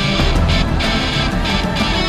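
Loud rock or metal music with distorted electric guitar over a fast, steady beat.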